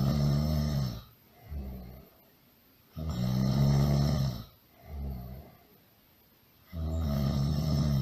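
Really loud snoring: a long snore followed by a shorter, softer one, the pair repeating about every four seconds.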